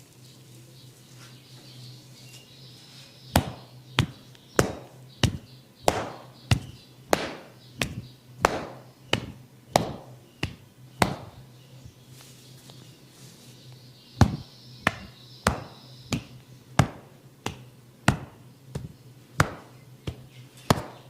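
Rhythmic percussive massage strikes: sharp taps about one and a half a second, in two runs of a dozen or so with a pause of about three seconds between.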